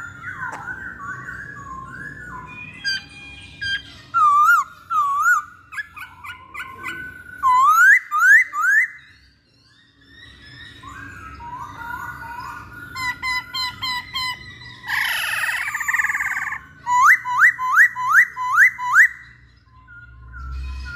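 Black-throated laughingthrush (poksay hongkong) singing a varied song of loud whistles, quick chattering runs and sharply rising notes, with a brief pause just before halfway. Near the end comes a fast series of about six upslurred whistles.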